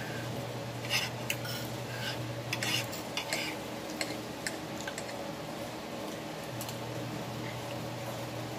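Metal spoon and fork clinking and scraping against a plate while scooping up food, as a scatter of light clinks, most of them in the first three seconds.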